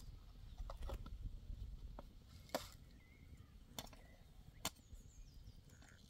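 A few sparse, sharp clicks and light knocks as a metal kettle and teapot are handled on a small wood fire, the two loudest about two and a half and four and a half seconds in.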